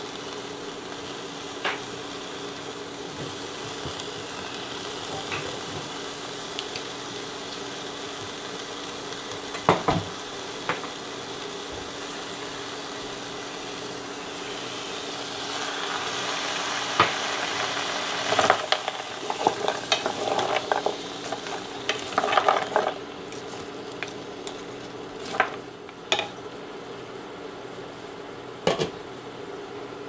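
Stir-fry of rice cakes and bok choy sizzling in a pan, with a wooden spoon stirring and knocking against it now and then. About halfway through, tamari sauce and water are poured in: the sizzle swells louder for several seconds amid a flurry of spoon scrapes and knocks, then dies down.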